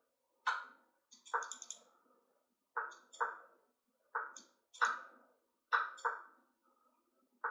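Quick series of sharp clicks with short decays, about a dozen in seven seconds, some in close pairs: online chess move sounds and mouse clicks as moves are played fast in a time scramble.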